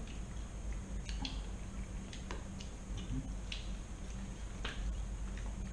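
Eating sounds: scattered small clicks and crackles of fried chicken being picked apart by hand and chewed, about eight in all, over a steady low hum.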